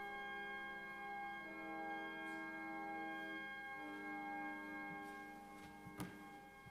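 Church pipe organ playing slow, held chords that change a few times. A single sharp knock near the end.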